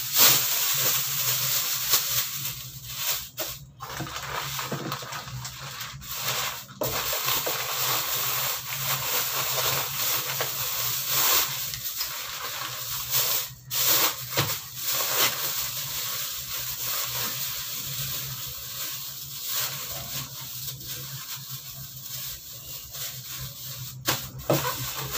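Thin plastic bags rustling and crinkling as they are shaken open, pulled over wrapped parcels and knotted shut. The rustling is densest in the first half and lighter later, with sharp crackles throughout.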